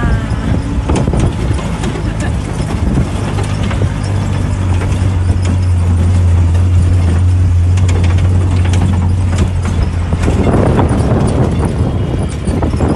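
Open-top jeep's engine droning steadily while it drives, heard from the back seat with wind buffeting the microphone. Scattered knocks and rattles come from the rough track. The drone swells in the middle.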